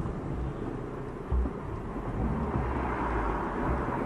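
Steady engine and road rumble of a car driving, heard from inside the cabin through a dashcam, with one short low thump a little over a second in.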